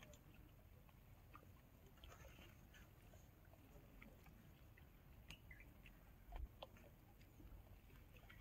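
Near silence: faint outdoor ambience, a low rumble with a few faint, short high chirps and ticks scattered through.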